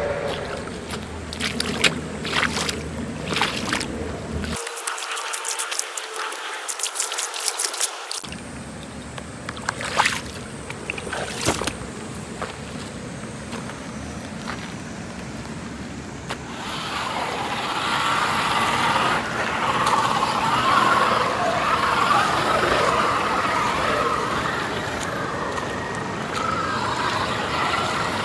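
1/10-scale Axial SCX10 III RC crawler driving through mud and water: wet splashing and churning from the tyres, with scattered sharp clicks and knocks. About halfway through, the churning becomes louder and steadier.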